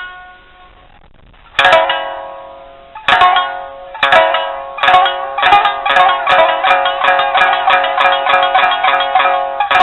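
Traditional kabuki music: a plucked shamisen-type string instrument, each note struck with a sharp percussive attack and left to ring. After a short pause the strokes return and come faster and faster.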